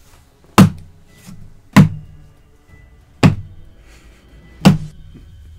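Lump of purple toy slime slapped down onto a tabletop again and again: four heavy thuds about a second and a half apart.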